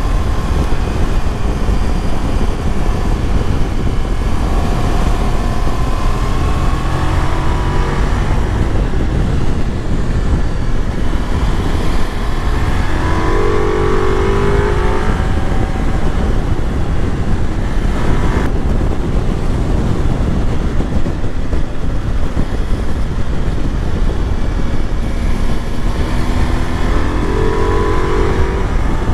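Ducati Multistrada V4S's 1158 cc V4 engine pulling hard while riding through curves, its note rising in pitch about three times as it accelerates. A heavy, steady low rumble of wind on the microphone runs underneath.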